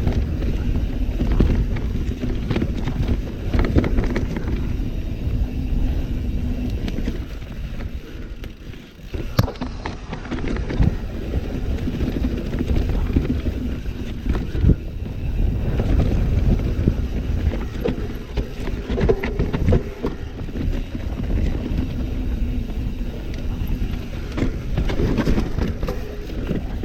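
Mountain bike riding down rough trail: wind buffeting the camera microphone, with the bike rattling and knocking over bumps. It eases briefly about a third of the way in, then picks up again.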